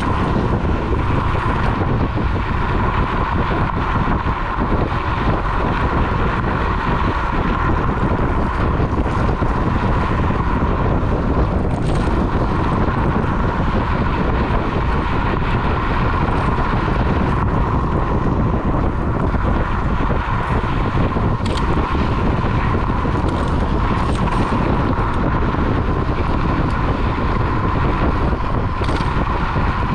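Electric scooter ridden fast on a dirt path: wind buffeting the microphone and tyres rumbling on the dirt, over a steady high whine.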